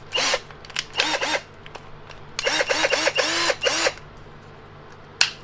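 Ingco cordless drill with a freshly fitted 550 replacement motor, run in a series of short trigger pulses. Each pulse is a brief whir that rises and falls in pitch, about seven in all, and the motor runs normally. A single sharp click comes near the end.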